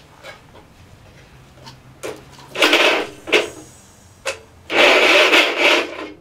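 Wisconsin THD two-cylinder air-cooled engine running with a faint low hum, broken by several loud rasping, hissing bursts; the longest lasts about a second near the end. One cylinder is dead from a burnt exhaust valve, and this engine is cold-starting after about twenty years.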